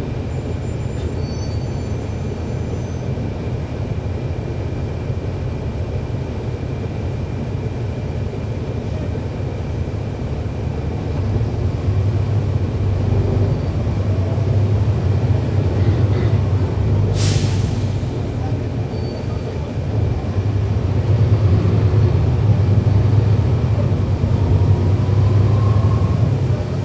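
Cummins ISL9 diesel engine of a 2011 NABI 40-foot transit bus heard from on board, running with a steady low rumble that swells louder twice, around halfway and again near the end. A brief sharp hiss sounds about two-thirds of the way through.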